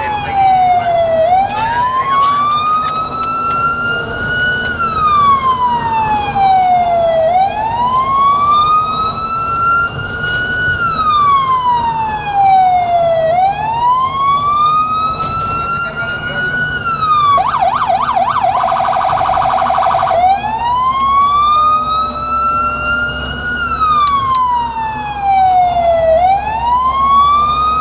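Emergency vehicle's electronic siren sounding a slow wail, each cycle sliding down and back up over about six seconds. About two-thirds of the way through it switches for about three seconds to a rapid yelp and then a fast warble, before going back to the wail. A low vehicle rumble runs underneath.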